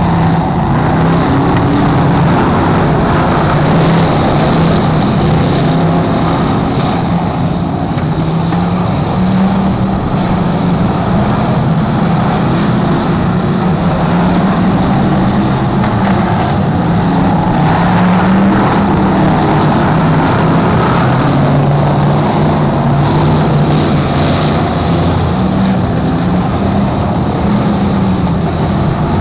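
Several dirt-track stock car engines running together, a steady rumble whose pitch wavers up and down.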